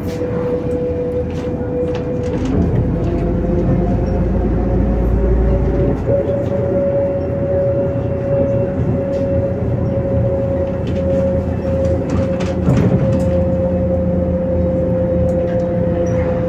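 Cabin noise of a MAZ-105 articulated city bus under way: a steady engine and drivetrain rumble with a whine that rises a little about six seconds in, then slowly falls, and scattered small clicks and rattles.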